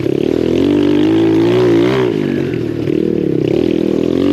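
Lifan 125 single-cylinder four-stroke pit bike engine running under throttle while riding, its pitch rising and falling as the throttle is worked, highest about two seconds in.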